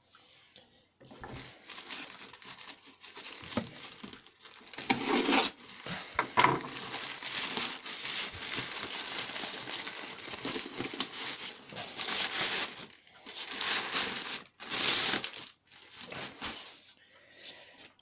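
Black plastic mailer bag crinkling and rustling as it is pulled open and a cardboard box is slid out of it. Starts about a second in, with a few short pauses near the end.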